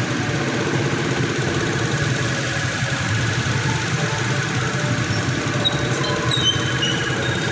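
Toyota Vios engine idling steadily and quietly, with its timing chain, guide and tensioner newly replaced and no rattle left.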